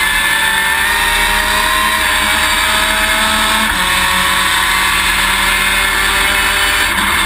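Top Race V6 race car engine heard from inside the stripped, roll-caged cabin under full load. Its pitch climbs steadily through the revs and drops back with an upshift about halfway through, then again near the end.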